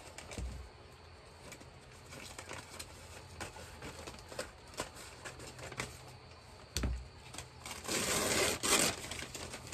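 Thick paper wrapping crinkling and tearing as a plant package is pulled open by hand, with many small sharp crackles, a couple of dull knocks, and louder crinkling about eight seconds in.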